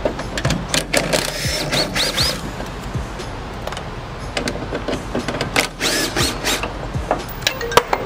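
Cordless impact gun with a 10 mm socket running in short bursts to back out tail-light mounting bolts, with irregular clicks and rattles. Background music plays underneath.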